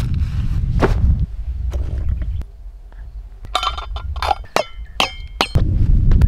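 Metal camp cookware clinking as a pot and lid are handled: several sharp clinks, some ringing briefly, in the second half. Wind rumbles on the microphone at the start and again near the end.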